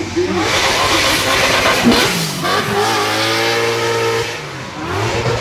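Race car engine running hard at high revs: a loud, noisy burst for about two seconds, then a steady held engine note that eases off near the end.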